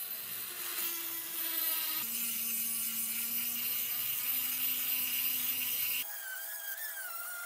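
Small high-speed rotary tool with a sanding drum grinding rust off the iron head of an antique hand adze: a steady high whine with a rasping scrape as the drum runs against the metal. The pitch shifts a little about two and six seconds in, wavering slightly near the end as the load on the drum changes.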